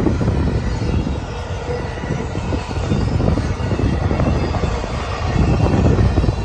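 Intermodal freight train of double-stack well cars rolling past steadily, a continuous low rumble with the clatter of wheels on the rails.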